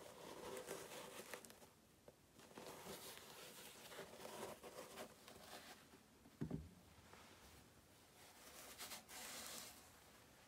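Cotton-gloved hands rubbing and handling suede sneakers and their laces, a soft rustling and scraping. A low thump about two-thirds of the way through, as a shoe is set down on the table.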